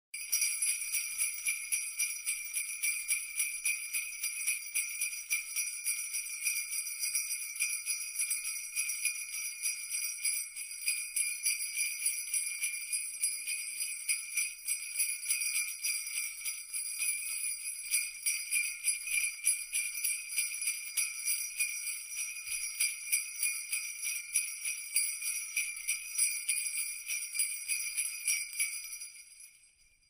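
Jingle bells (sleigh bells) shaken continuously in a steady, rapid jingle with a bright, high ringing, fading out near the end.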